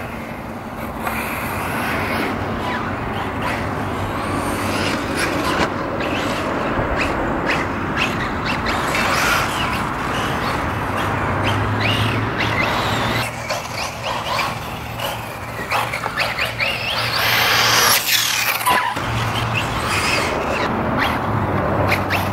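Kyosho MP9e 1/8-scale electric RC buggy running laps on a dirt track: motor whine rising and falling with the throttle, tyre noise on the dirt, and scattered knocks as it lands and hits the track. It gets loudest as it passes close, about seventeen seconds in.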